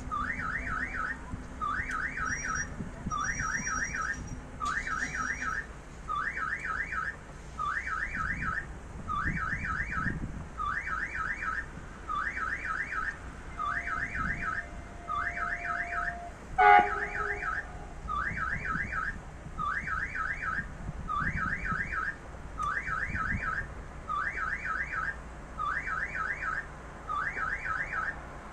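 Railway level-crossing warning signal sounding: an electronic pattern of a few quick rising tones, repeated about every second and a half. About 17 seconds in, a single short, sharp knock is the loudest sound.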